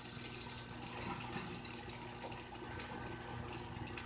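A utensil stirring thickening gravy in a pan, with soft irregular scrapes and ticks, over a steady low electrical hum.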